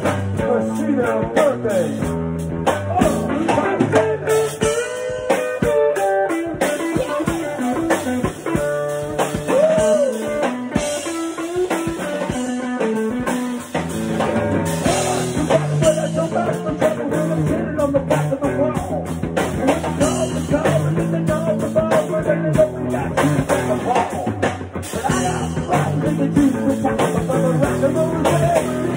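A rock band playing a bluesy song: an electric guitar carries a lead line with bending notes over a drum kit.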